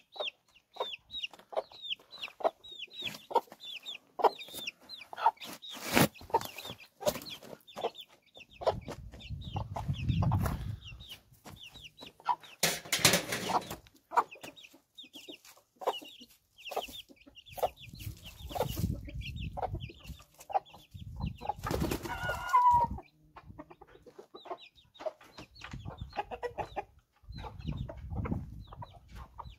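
A mother hen clucking while her chicks peep almost without pause, many short high peeps that each fall in pitch, broken by a few brief rustling noises.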